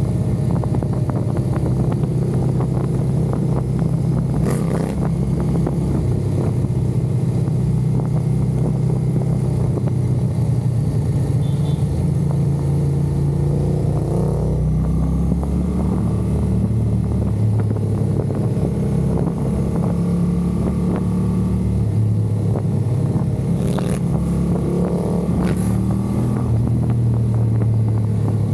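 Motor vehicle engines running steadily, with a few rising and falling revs as vehicles pull away.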